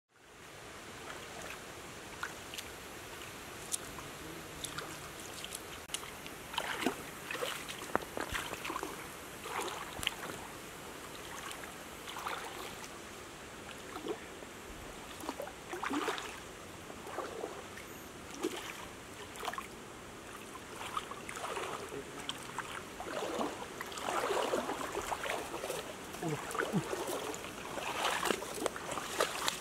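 Irregular splashing and sloshing of legs wading through a shallow stream, over a steady hiss of flowing water.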